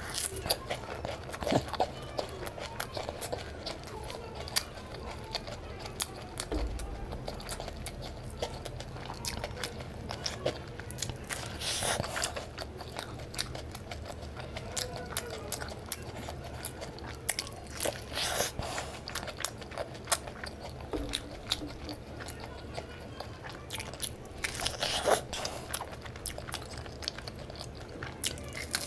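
Close-miked mukbang eating sounds: a person biting and chewing a fried samosa dipped in sauce, with steady wet mouth clicks and crunching and a few louder bites.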